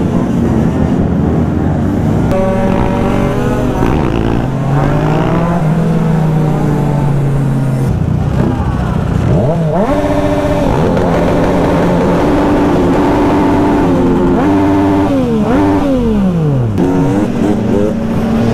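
A large group of motorcycles and scooters riding together, several engines revving up and down over and over, with the rider's own Yamaha MT-09 close by.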